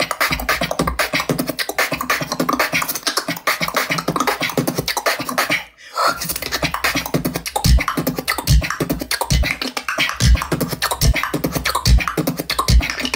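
Solo beatboxing: a fast, crisp stream of tongue clucks, super clean, breaking off briefly about six seconds in. In the second half a deep kick sound comes in a little faster than once a second under the clucks.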